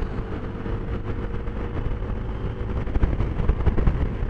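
Wind buffeting a generic lapel microphone during a motorcycle ride, over the rumble of the bike and traffic. The gusts grow stronger about three seconds in.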